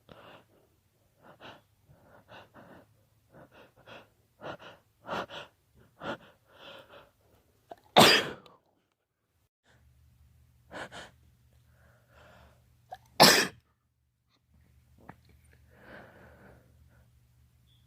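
A man with a pollen allergy takes a series of short, catching breaths, then sneezes loudly twice, about five seconds apart. A softer breath follows near the end.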